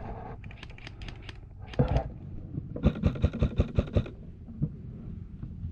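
Airsoft rifle firing a rapid string of shots, about eight a second for about a second, after a fainter run of quick shots in the first second and a single louder report near two seconds in.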